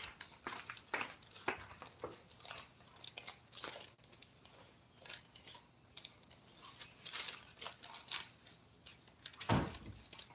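Irregular short scraping and rustling sounds of hands working on a piece, with a louder bump about nine and a half seconds in.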